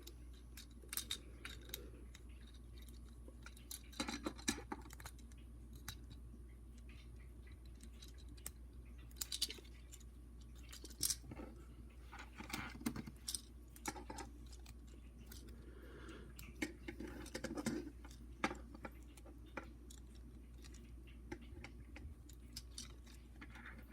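Plastic parts of a Transformers Cyberverse Ratchet figure and its tread armor pieces being handled and pressed onto pegs: faint, irregular clicks and scrapes over a steady low hum.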